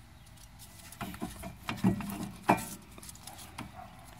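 Metal clicks and clunks as a brake caliper is worked off the rear brake of a 2008 Dodge Caravan, with a few sharper knocks in the middle.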